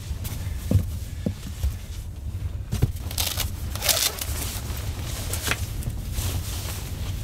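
Rubber boots knocking on the floor a few times as they are pulled on, then a jacket rustling and being zipped up, all over a steady low rumble of storm wind.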